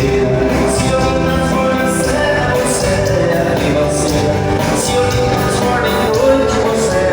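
Live band music with a male singer and a steady beat, with cymbal strokes at regular intervals.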